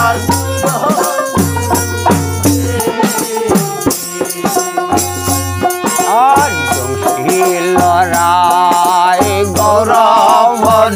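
Bengali murshidi folk song: harmonium tones over a driving dholak beat with rattling percussion. About six seconds in, a wavering solo voice comes in singing the melody.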